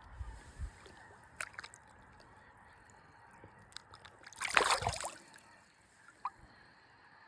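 A smallmouth bass splashing as it is released back into the river: one short, loud splash about halfway through, with a few small splashes and knocks before it.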